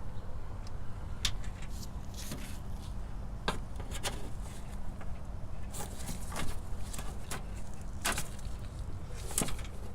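Scattered light clicks and taps of hands handling a battery cable and prying at a small plastic cable clip, over a low steady background hum.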